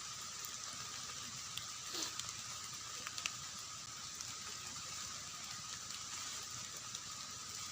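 Steady rain falling, with a few scattered sharp drips or taps.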